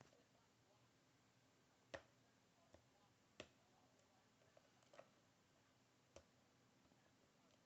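Sparse, faint clicks of a lock pick working inside a ZI Ikon SK6 Sperwelle lock cylinder while the sidebar is being picked, about six single clicks at irregular intervals.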